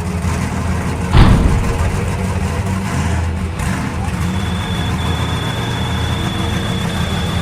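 Trophy truck engine idling steadily, with one sudden loud thump about a second in and a thin steady high tone coming in about halfway.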